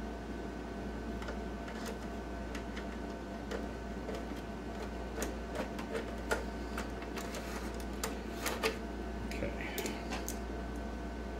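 Screwdriver and hands working on an IGT S+ slot machine's coin hopper: scattered small metallic clicks and taps, busier in the second half, over a steady low hum.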